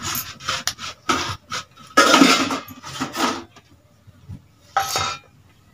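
Hands mixing cooked rice on steel plates: a run of short scraping and rubbing sounds of fingers and rice against the metal, with one more about five seconds in.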